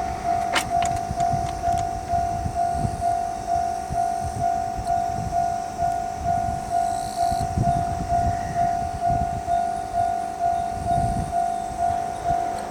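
Japanese railway level crossing's warning bell ringing in an even, repeating clang, about two strokes a second, signalling that a train is approaching.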